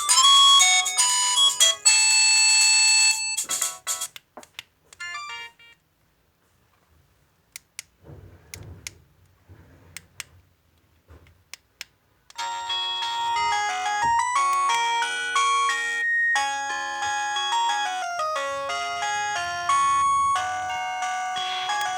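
LG MG160a mobile phone's electronic alarm tones playing: one melody stops about four seconds in, a few faint clicks follow in a quiet gap, then a different melody starts about twelve seconds in and carries on.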